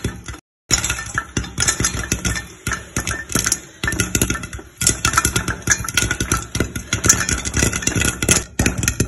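Corn kernels popping fast in butter and oil in a cooker under a glass lid: a dense, continuous run of sharp pops and crackles, with a brief break about half a second in.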